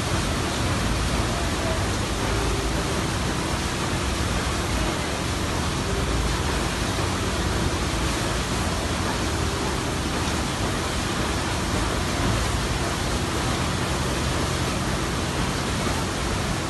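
A riverboat's stern paddlewheel churning the river: a steady, loud rush of splashing water with a low rumble underneath.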